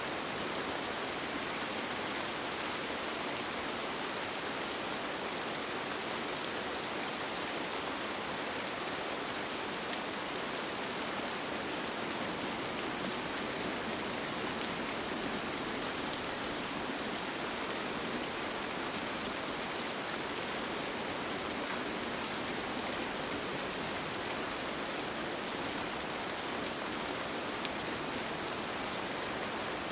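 Steady rain falling on a tent, with faint individual drops ticking through an even hiss.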